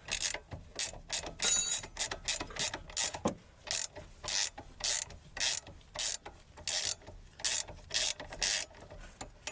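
Hand ratchet wrench worked back and forth, its pawl clicking in short bursts about twice a second.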